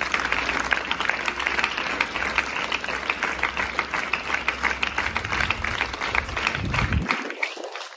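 Audience applauding: many hands clapping steadily, then dying away about a second before the end.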